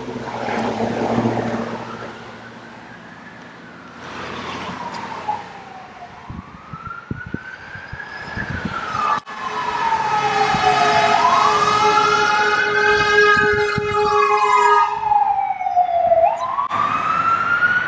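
Ambulance siren wailing in slow rising and falling sweeps, getting louder from about halfway in as it approaches. For a few seconds a second sweeping tone and a steady blaring tone overlap the wail.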